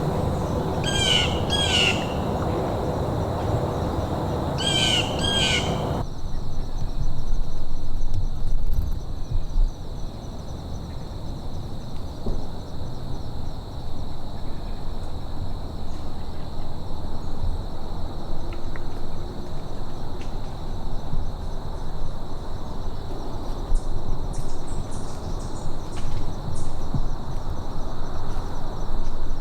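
Wild birds calling in the woods: two short runs of high chirping calls in the first few seconds, then only a few faint chirps later on. A steady low rumble lies under it throughout.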